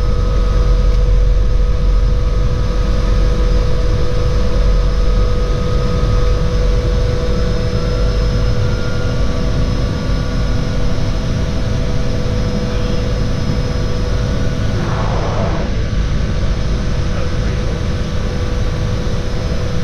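A seaplane's engine and propeller run steadily as it taxis on its floats across the water: a loud, steady drone with a low rumble.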